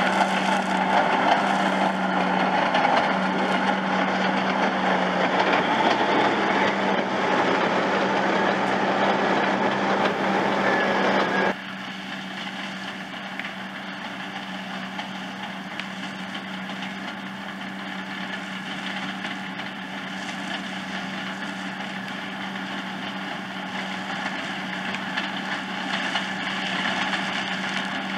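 New Holland T7.210 tractor's six-cylinder diesel running steadily under load with a Grimme SE 150-60 potato harvester's machinery clattering along behind it. The sound drops suddenly to a quieter level about eleven seconds in, then runs on steadily.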